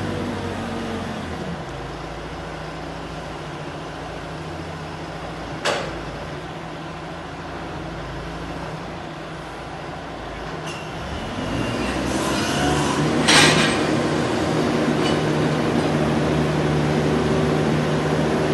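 Diesel engine of a heavy construction machine running, rising in level and revving up about two-thirds of the way through. There is a single sharp knock about six seconds in and a short noisy burst soon after the rev-up.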